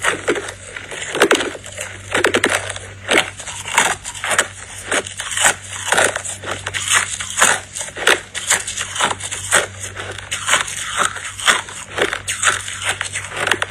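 Close-miked chewing of a mouthful of crushed ice: a dense, continuous run of sharp, crackling crunches, several a second.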